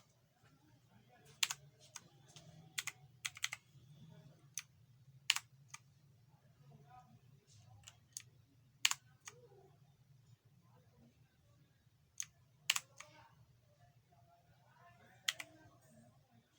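Clicky blue switches of an Inphic K12 mechanical keyboard, keys pressed one at a time at irregular intervals, each a sharp click, over a low steady hum.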